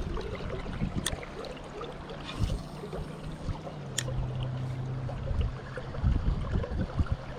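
Steady rush of a small river's flowing water, with two sharp clicks, one about a second in and one about four seconds in.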